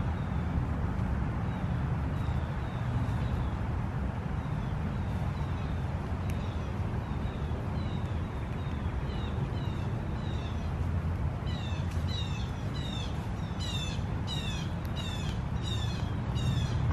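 A small animal chirping over and over: short high calls that each drop in pitch, about two a second, louder over the last five seconds. Under it is a steady low rumble.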